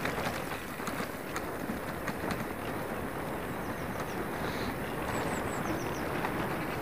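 Brompton electric folding bike rolling over a rough, potholed dirt track: a steady rumble from the tyres with frequent clicks and knocks as the bike rattles over the bumps.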